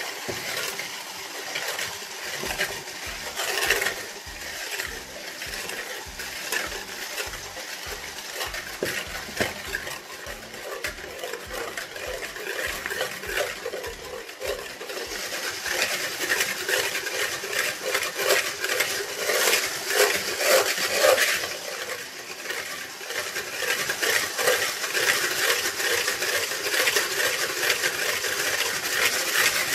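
Braun electric hand mixer running with its whisk in a plastic bowl, the whisk clattering against the bowl as it beats whipped-topping powder with milk. The clatter grows louder about halfway through.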